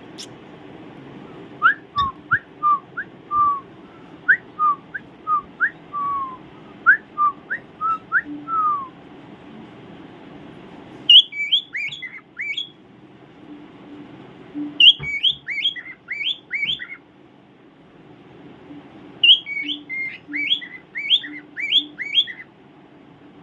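Pet bird whistling in bouts of short gliding notes. First comes a run of lower notes, each falling in pitch. After that come three bursts of higher, quicker notes with pauses between them.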